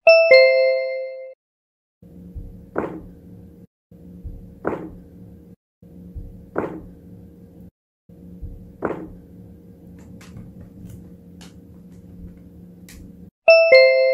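A two-note electronic ding-dong chime, then a short recording with one soft knock in it, played four times over a steady low hum, then the chime again near the end.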